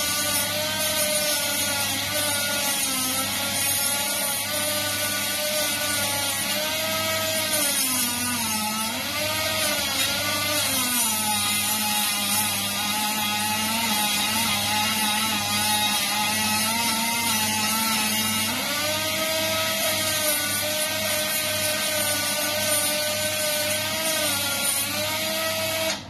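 Ryobi rotary tool running at speed through its flexible shaft, the bit deburring the inside of a freshly cut EMT conduit end. A steady high whine whose pitch dips and recovers several times, most around a third of the way in and again about two-thirds in.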